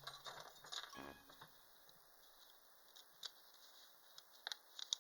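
Near silence with light handling noises: faint rustling early on and a few small clicks of sewing machine parts being handled during threading, the last two close together near the end.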